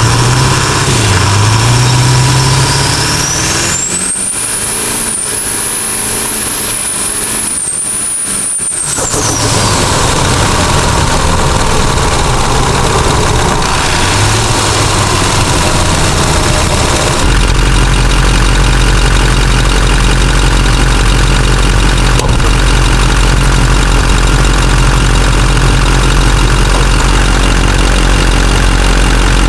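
Duramax V8 turbo-diesel with a newly fitted S366 turbocharger, the engine running throughout. Its turbo whistle climbs steeply to a high pitch about three seconds in, holds for about five seconds, then falls away. A deeper, steady engine drone sets in past the halfway point.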